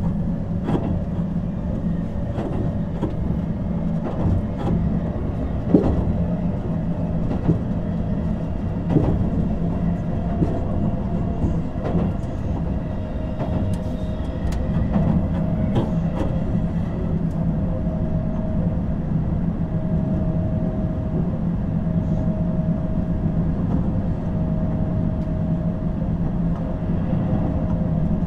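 Keihan 7200 series electric train running at speed, heard from inside the car: a steady rumble of wheels on rail with scattered sharp clicks of wheels crossing rail joints, and a thin steady whine above the rumble.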